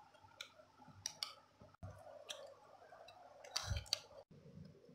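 A few faint clicks and taps as a small doll is handled and set into a toy bunk bed, with a louder knock about three and a half seconds in.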